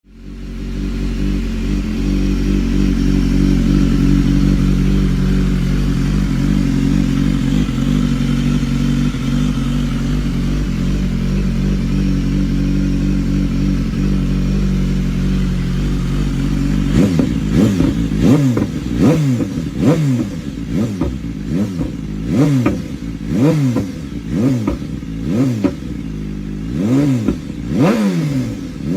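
BMW S1000RR inline-four engine running through an aftermarket exhaust, idling steadily, then blipped hard on the throttle about ten times in quick succession from a little over halfway, each rev rising sharply and falling back.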